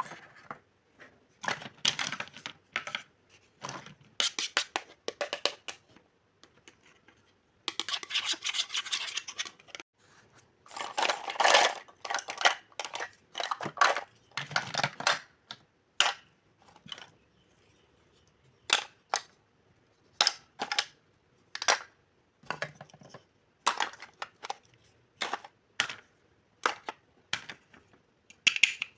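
Kitchen items being handled: a string of sharp clicks and taps, sometimes in quick runs, with a few short stretches of crinkly, crunchy rustling.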